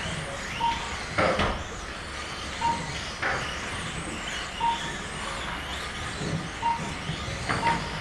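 Kyosho Mini-Z 1:28-scale electric RC cars racing on an indoor track: a steady mix of small motors and tyres on carpet, with a few sharp knocks or clatters. A short electronic beep repeats about every two seconds.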